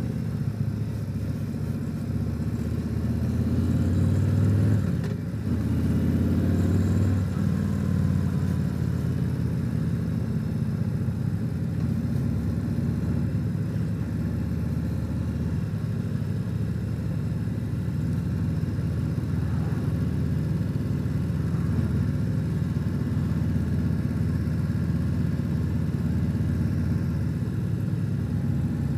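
Harley-Davidson Tri-Glide trike's V-twin engine running steadily on the road. About five seconds in it briefly drops off, then rises in pitch as it picks up again.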